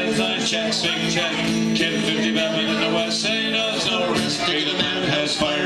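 Music with a steady beat, playing on without a break.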